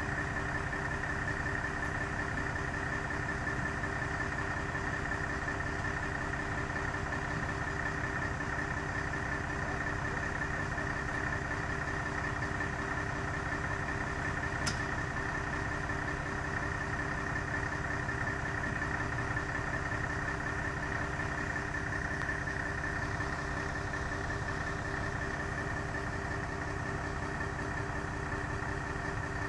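Fire engine's aerial ladder truck running steadily at idle, with a steady high whine over the engine hum, as it powers the extended ladder. A single short click about halfway through.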